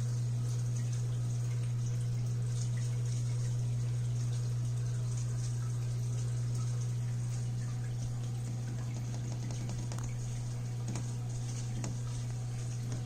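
Fish-tank water bubbling and trickling over a steady low electrical hum from the aquarium pump.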